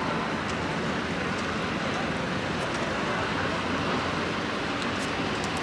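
City street ambience: steady traffic noise with the chatter of passers-by.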